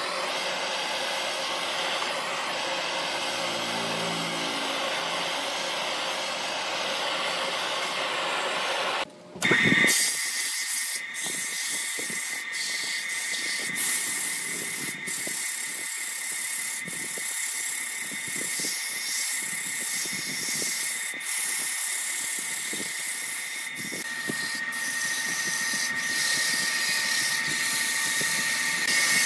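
Wood lathe spinning a turned wooden vase while sandpaper is held against it by hand, giving a steady rubbing noise. After an abrupt change about nine seconds in, a steady high whine from the lathe runs under the uneven rubbing, with a few sharp clicks.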